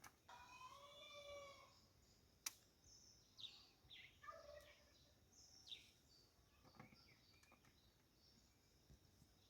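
Faint bird calls against near silence: one drawn-out call in the first two seconds, then several short falling chirps, and a single click about two and a half seconds in.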